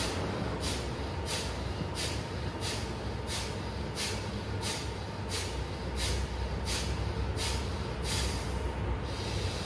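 Kapalabhati yoga breathing: sharp, forceful exhalations through the nose, pushed out by the diaphragm, with a passive inhale between each, about three every two seconds. The series stops about eight and a half seconds in.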